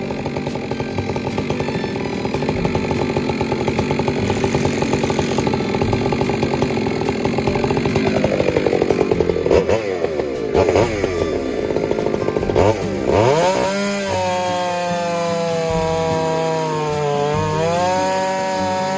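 Two-stroke chainsaw running and cutting into wood, its engine pitch steady at first, then sweeping down and up several times through the middle and dipping once more near the end as the load on the chain changes.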